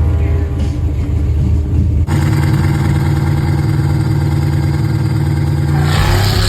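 A race car's engine running with a low, steady rumble. About two seconds in it jumps abruptly to a higher, steady note, held for about four seconds.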